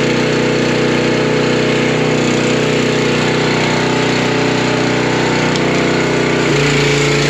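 Bilt Hard 3500 PSI gas pressure washer's 224cc engine running steadily. About six and a half seconds in, its note changes to a different steady pitch.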